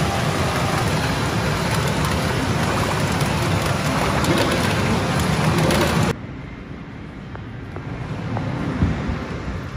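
Loud, dense din of a pachinko parlour, an even roar of machines and steel balls. It cuts off abruptly about six seconds in, leaving a much quieter background hum.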